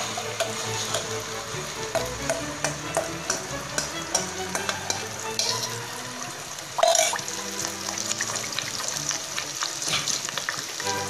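Wet blended chili paste (chili, onion, garlic, ginger, galangal, lemongrass, dried shrimp) sizzling and crackling as it goes into hot oil in a pot. One brief louder knock about seven seconds in.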